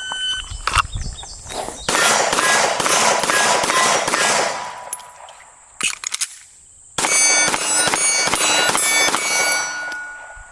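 Handgun fired in a fast string of shots (a bill drill), then a few clicks of a speed reload, then a second fast string of shots.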